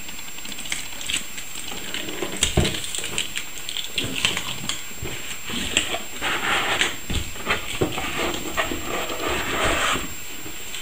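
Cardboard box being opened and handled: scattered taps, scrapes and rustles of the cardboard lid and flaps, busiest a little past the middle.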